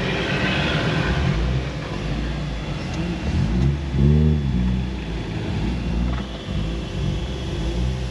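Land Rover Defender 110 driving in slow city traffic, heard from inside the cab: a steady low engine and road rumble, with the engine revving up and back down once about four seconds in.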